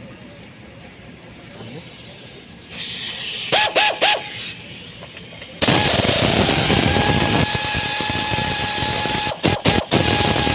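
Compressed air hissing from a blow gun in a few short whistling blasts, then a sudden long steady blast with a whistle, briefly cut off and restarted near the end. This is typical of blowing dirt out of spark-plug wells while the plugs are being removed.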